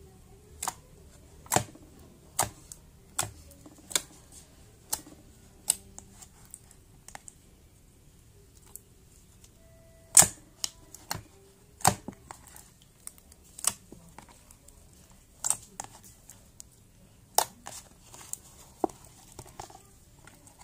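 Fingers poking and pressing slime in a plastic tub, giving sharp clicks and pops, about one a second at first and then more spaced out, the loudest about halfway through.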